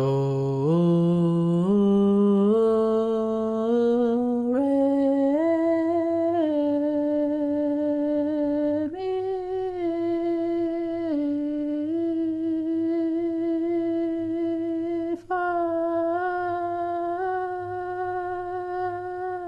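A person humming one long continuous tone. It climbs in small steps over the first five seconds, then holds near one pitch with a few small shifts, breaking off briefly about fifteen seconds in.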